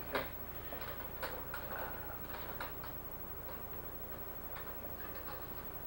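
Board-game pieces clicking and tapping on the game board as a move is made: one sharp click just after the start, then scattered lighter clicks, over a steady low hum.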